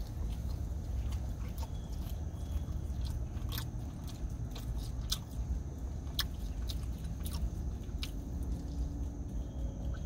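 A person chewing a bite of a spinach and feta tortilla wrap with the mouth closed, with scattered wet mouth clicks and smacks at irregular intervals over a steady low rumble.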